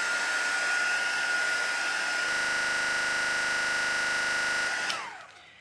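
Craft heat tool blowing hot air over a wet card to dry it, its fan motor giving a steady high whine over the rush of air. About two seconds in the sound turns buzzier, and about five seconds in it is switched off, the whine falling away as the fan spins down.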